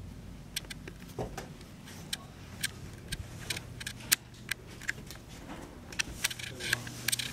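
Irregular sharp clicks and light taps, roughly two or three a second, over a steady low hum that sets in about three seconds in.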